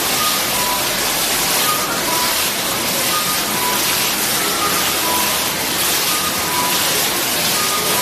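Digital water curtain's nozzles releasing patterned sheets of water that fall and splash into the basin below, a steady loud rushing hiss that swells and eases slightly with the patterns.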